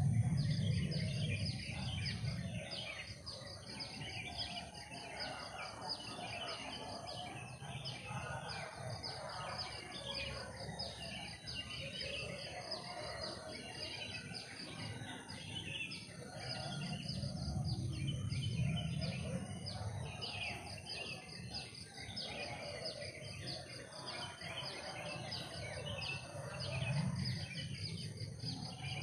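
Forest ambience: a dense chorus of bird chirps and calls, with a low rumble swelling now and then, at the start, about two-thirds through and near the end.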